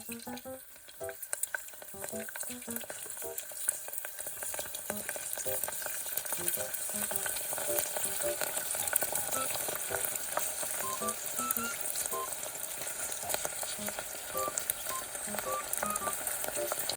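Shrimp chips deep-frying in hot oil: a dense, steady sizzle and crackle that builds over the first few seconds.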